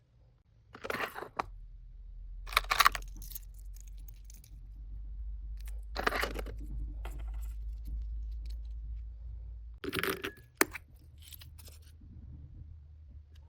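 Items and packaging being handled during an unboxing: several bursts of rustling and crinkling, with a sharp small click or clink about ten and a half seconds in, over a steady low hum.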